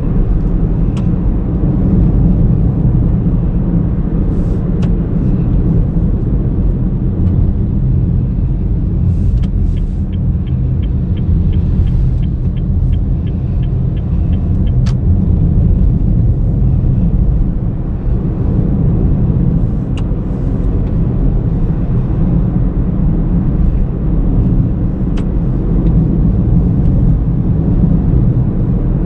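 2019 Honda Brio V CVT on the move: a steady low rumble of engine and road noise. For a few seconds in the middle there is a run of quick, even ticks, about three a second, with a few single clicks elsewhere.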